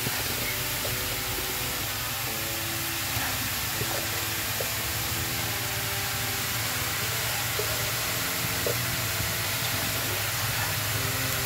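Steady hiss of gourami steaming and sizzling on hot rock salt in a wok, with a few faint ticks as the fish are turned by hand.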